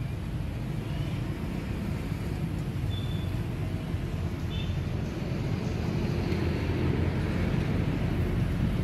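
Steady low outdoor rumble that swells a little toward the end, with two brief high chirps about three and four and a half seconds in.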